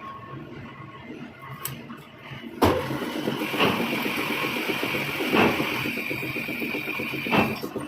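Metalworking machine in a shop: a low running hum, then about two and a half seconds in it starts up loudly and runs with a steady high-pitched whine, with a few sharp knocks along the way.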